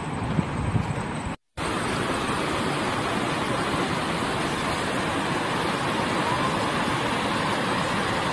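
Steady rush of river water running over rocky shallows and small rapids, picking up after a brief break in the sound about a second and a half in. Before the break, a few low bumps.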